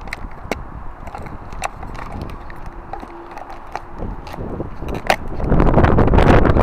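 Scattered sharp knocks and clicks from handling guttering. About five seconds in, a loud rough rushing noise takes over.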